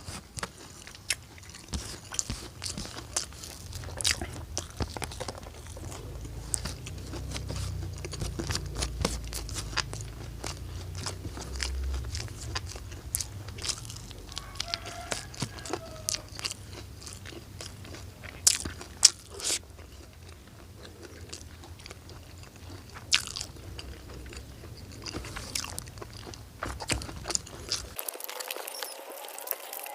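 A person eating close to the microphone: irregular crunching, biting and chewing.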